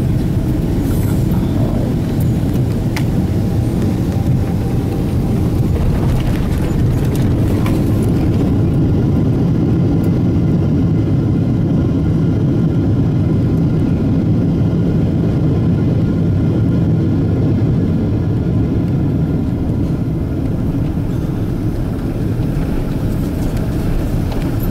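Steady cabin rumble of a Boeing 777-200ER's Rolls-Royce Trent engines and airframe heard from a passenger seat, with a few knocks in the first several seconds. About eight seconds in the hiss falls away, leaving a lower rumble with a faint engine whine as the airliner slows.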